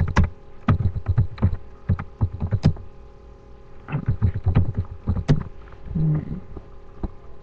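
Computer keyboard keys tapped in short bursts as a password is typed, with single clicks between the bursts.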